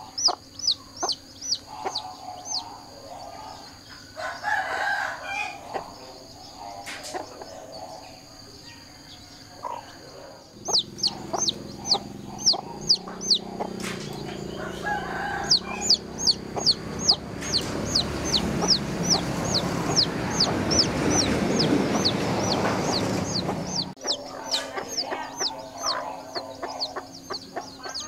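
Chicken chicks peeping: quick, high, falling cheeps several times a second, with lower chicken clucks and calls in between. Through the middle a steady rushing noise with a low hum swells and then cuts off abruptly about three-quarters of the way through.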